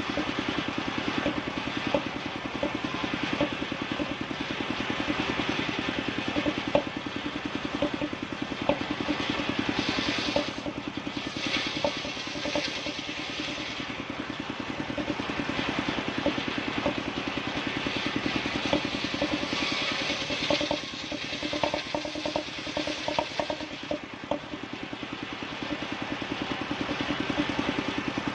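Engine-driven wood saw running steadily, its engine keeping a fast, even beat, with a brighter hiss for a few seconds around the middle as the blade works through timber.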